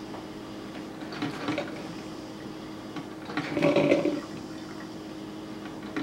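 Mr. Coffee drip coffee maker gurgling and sputtering as it pushes hot clean water through to rinse out the descaling vinegar, over a steady low hum. Two louder gurgles, one about a second in and a stronger one near four seconds in.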